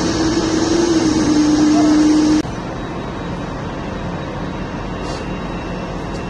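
Outdoor noise with a steady machine hum held at one pitch, dipping slightly about a second in, that cuts off suddenly about two and a half seconds in. A quieter, even outdoor noise follows.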